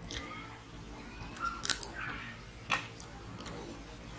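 A man chewing a mouthful of chicken curry and rice, with several sharp, wet mouth clicks and smacks.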